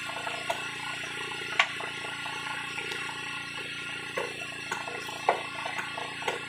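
A fishing hand line being hauled in by hand over the wooden edge of a boat: a handful of short sharp clicks and knocks, the loudest about one and a half seconds in, over a steady low machine hum.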